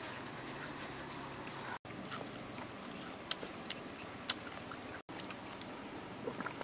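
Puppies eating grilled fish off a banana leaf: scattered wet chewing and smacking clicks over a steady background hiss, with a few short, high rising chirps. The sound cuts out for an instant twice.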